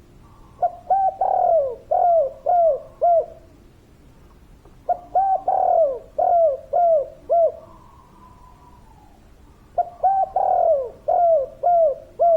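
Spotted dove (tekukur/derkuku) cooing: three phrases about five seconds apart, each a short run of five or six coos with one longer, drawn-out note early in the run.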